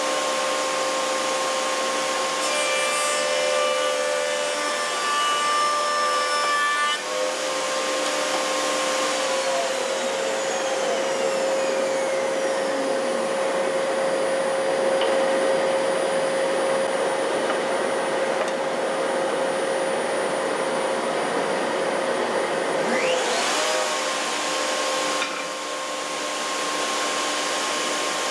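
Table-mounted router spinning an Encore 9346 adjustable rail-and-stile cutter while a wooden strip is fed past it to cut the profile. A steady motor whine, whose pitch shifts about seven seconds in and again near the end, runs under rough wood-cutting noise.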